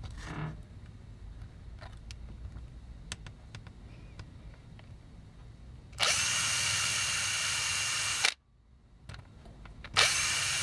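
Small power drill running in two bursts of about two seconds each, a steady high whine that starts and stops abruptly, drilling out a toy's rivet. Before the first burst, faint clicks of handling.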